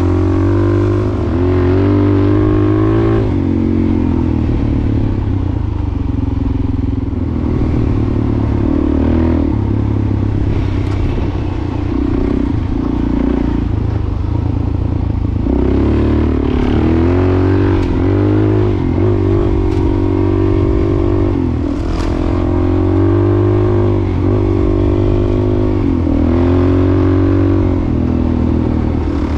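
A 400 cc single-cylinder dual-sport motorcycle engine running under way on a dirt trail, its revs rising and falling again and again as the throttle is worked. A few sharp clicks are heard in the second half.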